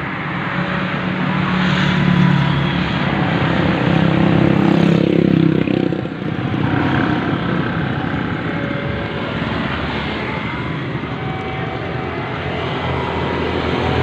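A passing train: a diesel locomotive's engine drone that eases off about six seconds in, followed by a steady rumble.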